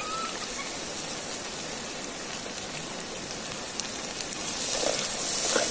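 Hot oil sizzling in a metal pot over a wood fire as chopped tomato is stirred in with a steel ladle. The sizzle grows louder over the last couple of seconds.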